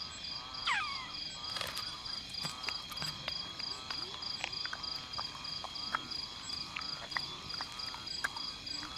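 Night chorus of frogs and insects: a steady high insect trill with an evenly pulsing one above it, and frogs giving short arched calls over and over, with scattered clicks. A falling whistle about a second in.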